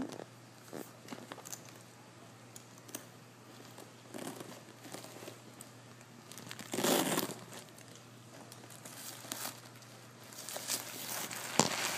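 Tissue paper crinkling and rustling as it is handled, in scattered short bursts with a louder crumple about seven seconds in and more rustling near the end.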